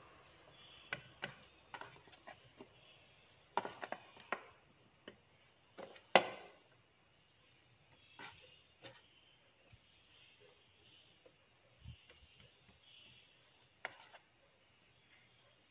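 Fingers handling raw fish pieces on a plate while rubbing in a garlic and salt paste: faint scattered taps and clicks, the loudest about six seconds in. A steady high-pitched whine runs underneath.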